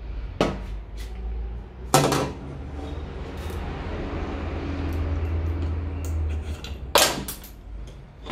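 Metal hand tools knocking against a car's tailgate as they are picked up and put down: three sharp knocks, the loudest about two seconds in, over a steady low hum.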